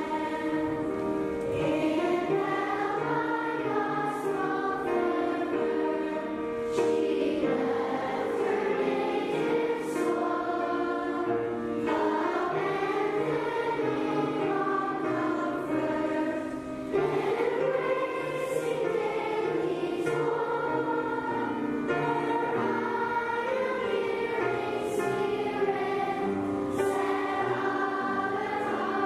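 A choir singing, the voices holding long notes.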